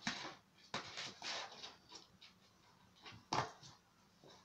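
A kitten scratching and scrabbling at a cardboard box, irregular bursts of scraping and rustling cardboard, with the sharpest scrape a little over three seconds in.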